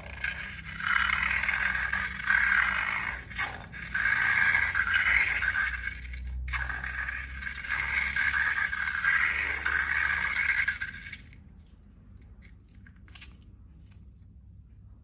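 Slime and balloons being handled and rubbed, making loud scraping, rubbing noises in several long bursts that stop about eleven seconds in.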